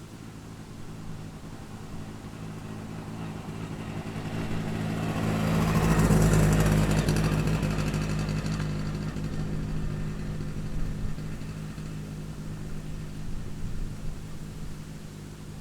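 A road vehicle passing by: its engine and tyre noise build up, are loudest about six seconds in, then slowly fade away.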